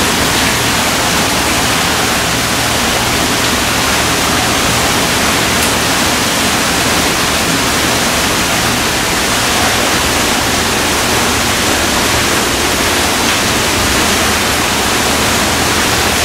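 Steady, even rush of running water in a river otter exhibit, with no distinct splashes or calls.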